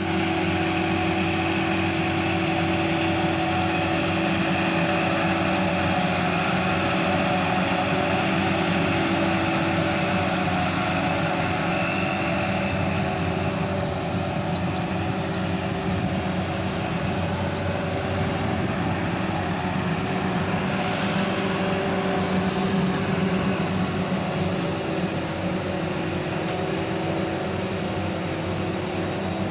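Self-propelled forage harvester chopping barley for silage, heard from inside the cab: the engine and chopping drum running under load as a steady drone.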